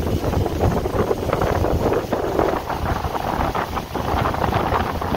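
Motorboat running across the water, with wind buffeting the microphone over the low rumble of the engine and the water rushing along the hull.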